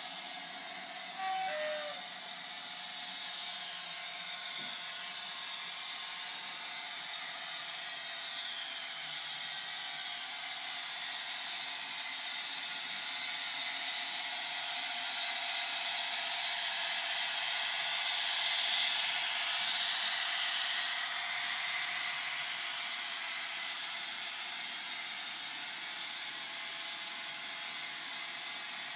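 Bachmann OO-gauge Class 57 model locomotive running under DCC sound, its small onboard speaker playing a recorded Class 57 diesel engine with a steady high whine and almost no low end. It grows louder as the locomotive passes close by in the middle, then fades back.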